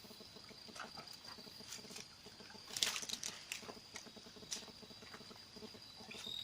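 Steady high-pitched chirring of night insects, most likely crickets, with scattered faint clicks and rustles and one louder rustle about three seconds in.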